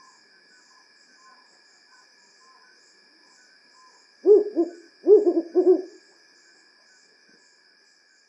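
African wood owl hooting one phrase about four seconds in: two low hoots, then a quick run of three.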